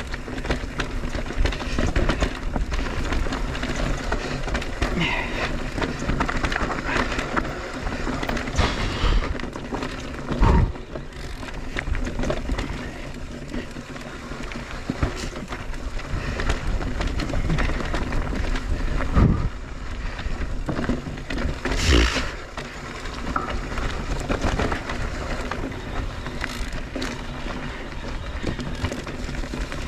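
Mondraker Crafty Carbon R electric mountain bike ridden down a dirt trail: a steady rush of wind and tyre noise with the bike rattling over the ground, and three heavy thumps, about 10, 19 and 22 seconds in, from hitting bumps or landing.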